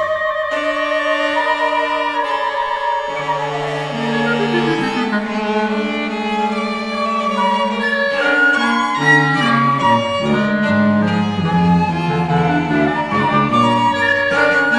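Classical string music: bowed strings holding sustained notes, with lower strings entering underneath after a few seconds and the texture growing fuller about nine seconds in.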